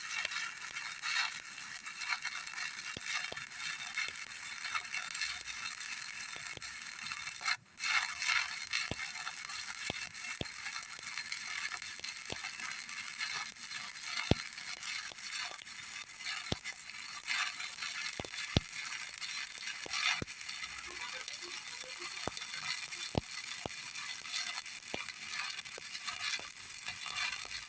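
Stick (shielded metal arc) welding arc crackling and sizzling steadily, with scattered sharp pops. The arc drops out for a moment about seven and a half seconds in.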